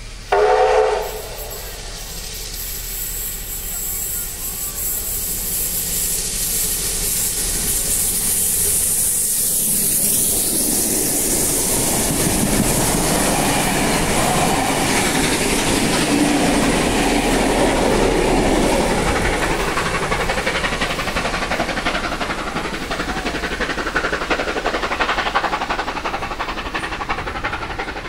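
A steam-hauled heritage passenger train, the locomotive 3801 with its carriages, running past along a station platform: the noise of wheels and carriages builds, holds at its loudest in the middle, then eases as the train draws away. A short loud blast sounds about a second in.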